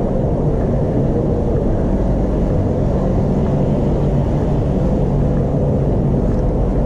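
Steady, loud low rumble with no clear events or rhythm.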